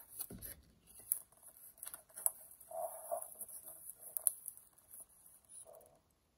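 Paper and cardboard being handled as a small cardboard box is unpacked: soft rustling of a paper sleeve being pulled out, with scattered light taps and clicks.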